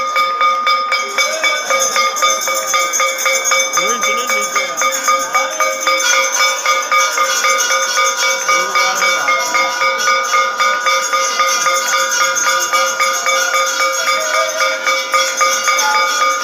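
Temple bells rung steadily with rapid, even strokes during aarti, the lamp-waving worship; a second bell joins about six seconds in. Faint voices underneath.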